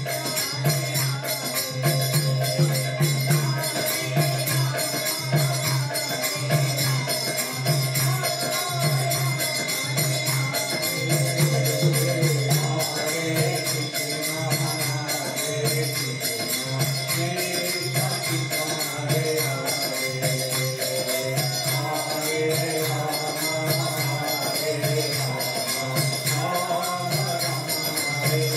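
Devotional kirtan: voices chanting in call-and-response style over a harmonium, with a mridanga drum beating a steady rhythm and karatalas (small hand cymbals) ringing and jingling.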